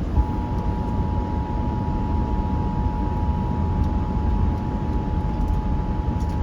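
Emergency Alert System two-tone attention signal: two steady tones sounding together, starting a moment in and holding unbroken, over a constant low rumbling hiss. It signals that an emergency warning is about to be read.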